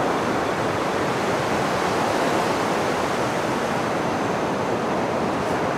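Steady rushing of flowing river water, an even noise with no separate events.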